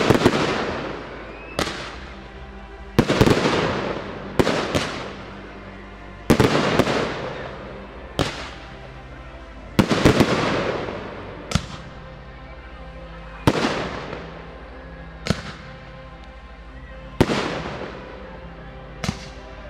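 Aerial firework shells bursting in the sky one after another, a sharp bang every second or two, each trailing off over about a second.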